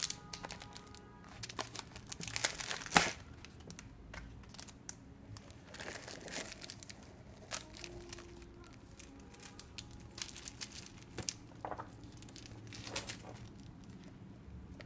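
Clear plastic protective film crinkling and rustling in irregular bursts as a mini shoulder bag and its wrapped strap are handled, with a few sharp clicks. The loudest crinkle comes about three seconds in.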